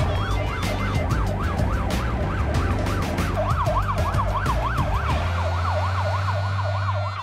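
Fire engine siren yelping, its pitch sweeping rapidly up and down about three times a second.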